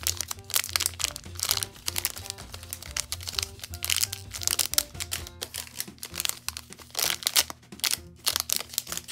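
Clear plastic bags crinkling and rustling in short bursts as bagged squishy toys are picked up and handled, over background music with a simple repeating melody.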